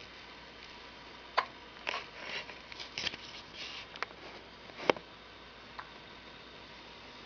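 Baby hiccuping: two sharp hiccups about three and a half seconds apart, with a few fainter clicks and soft breathy noises between them.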